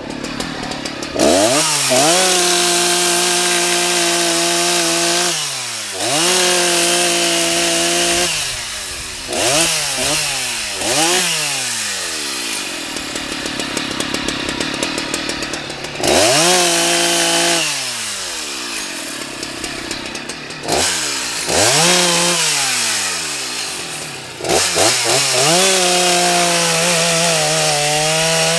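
Husqvarna 181 SE two-stroke chainsaw revved up to full throttle and cutting softwood in several passes. It holds a high steady pitch through each cut, drops back towards idle between cuts, and gives a few quick throttle blips.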